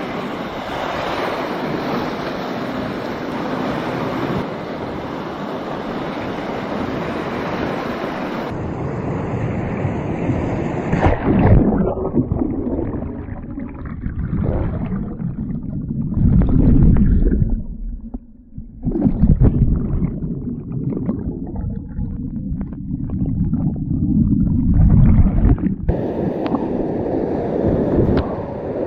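Rushing whitewater of a grade 3/4 river rapid, heard from a kayaker's action camera. About ten seconds in, the sound turns muffled and low as the kayak capsizes and the camera goes under water, with surging underwater rushes. The bright rush of the rapid comes back near the end when the kayaker is upright again.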